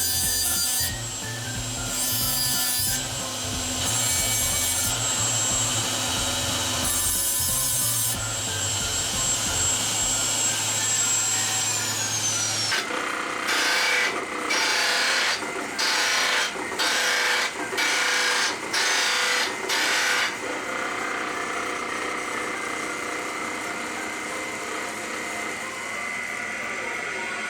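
Metal finishing by abrasion on titanium sheet: a tool runs in loud on-and-off passes, its high whine winding down about twelve seconds in. Then come about eight slow, even rubbing strokes, followed by steadier, quieter rubbing.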